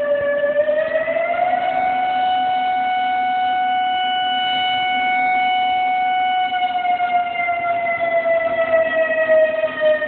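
Tornado warning siren sounding a sustained wail with overtones; its pitch rises slightly about a second in, holds steady, then sags slightly near the end, and its loudness wavers at the start and end.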